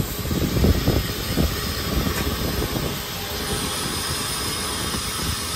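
Nickel Plate Road 765, a 2-8-4 Berkshire steam locomotive, running: a loud rumble and rush of noise, with uneven low thumps in the first few seconds, then steadier.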